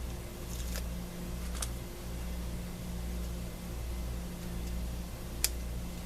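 A steady low mechanical hum with a few light clicks of small crafting materials being handled, the sharpest about five and a half seconds in.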